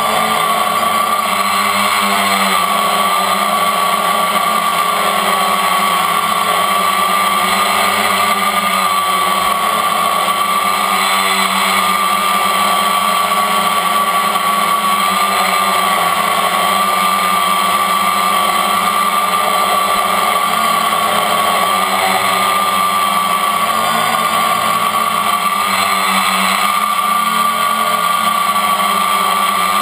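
The brushless motors and propellers of a MultiWii multirotor, heard from a camera on its frame, make a loud steady whine as it hovers. The pitch wavers slightly as the motors adjust.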